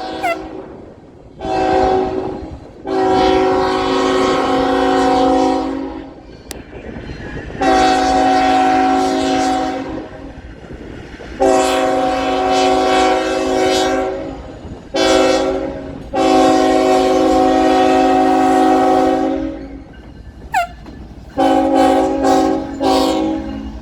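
Norfolk Southern locomotive air horn playing a horn show: about seven chords, mostly long ones of two to four seconds with a few short toots, the last broken into quick stabs. The train's low rumble runs underneath between blasts.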